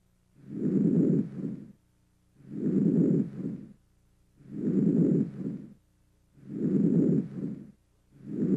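Normal vesicular breath sounds heard on chest auscultation: a soft, low-pitched rustle on each inspiration that carries on into the first third of expiration and then falls quiet. The cycle repeats about every two seconds, four breaths and the start of a fifth. It is the normal sound over most of the lung fields.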